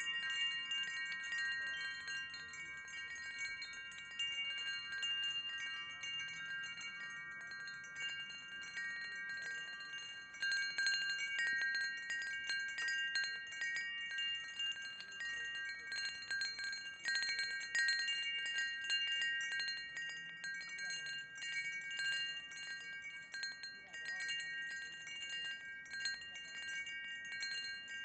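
Wind chimes ringing: several clear tones overlap and hang on, renewed by irregular clusters of strikes that grow busier about ten seconds in and again about sixteen to nineteen seconds in.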